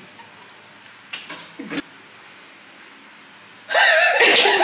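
A woman bursts into loud laughter near the end, after a few seconds of a quiet room with a couple of faint short sounds.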